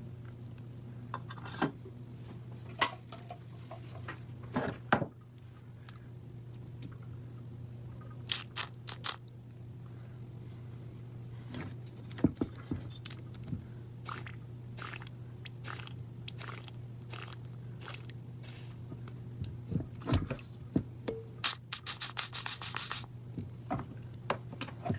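Hands and tools working on a car's ABS unit: scattered clicks, taps and scrapes over a steady low hum, with a brief hiss near the end.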